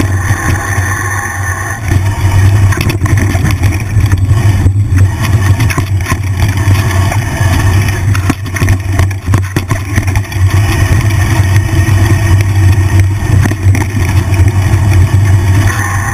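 Wind rumbling over an action-camera microphone as a mountain bike rides a dirt trail, with rattles and knocks from the bike over bumps. The rumble gets louder about two seconds in.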